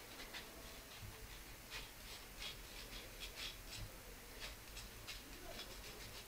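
Faint scratching of a spoon rubbing icing sugar through a fine metal mesh sieve, in short strokes at an uneven pace.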